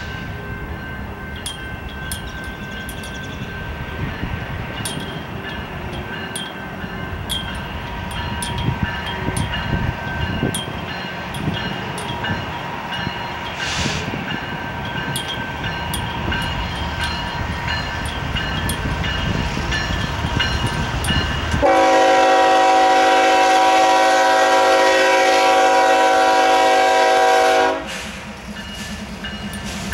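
Approaching BNSF diesel freight locomotives: a rumble that slowly grows louder, with a sharp click every second or so. About two-thirds of the way in, the locomotive horn sounds one loud, steady multi-chime blast of about six seconds, then cuts off.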